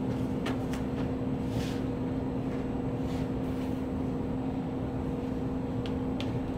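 A steady low electrical hum, with a few faint short rustles and taps as cloth pants are smoothed out on sheets of paper.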